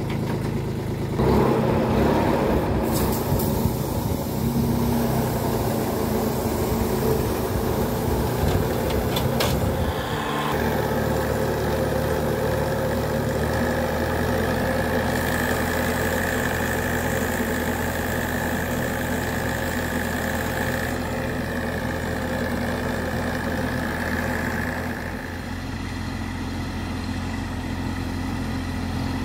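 Kubota B2441 compact tractor's three-cylinder diesel engine running steadily, driving the fan of a 200-litre air-blast blower sprayer as it sprays. A steady high whine joins the engine sound about halfway through.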